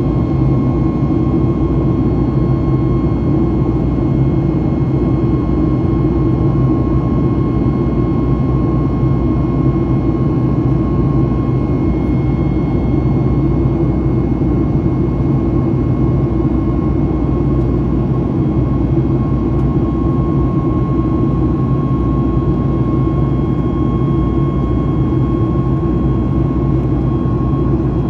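Steady jet cabin noise inside a Boeing 737 MAX 9 climbing after takeoff: the drone of its CFM LEAP-1B engines and the rush of air past the fuselage, with a thin steady whine above it.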